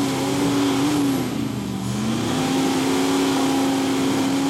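Rock crawler's engine running as the rig climbs the hill. Its note dips about a second and a half in as the throttle eases, then comes back up and holds steady.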